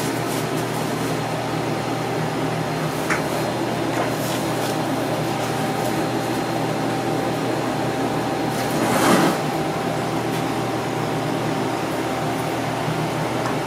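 Steady mechanical hum with several faint steady tones, with a short louder rushing noise about nine seconds in.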